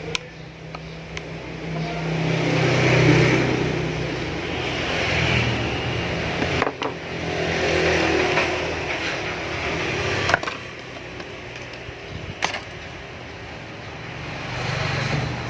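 Motor vehicles passing on a nearby road: engine noise swells and fades about three times, with a few sharp clicks in between.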